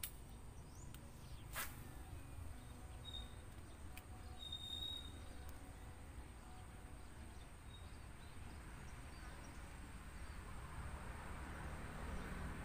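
Quiet rural outdoor ambience with a steady low rumble, a single sharp click about a second and a half in, and a bird giving two short high chirps a few seconds in.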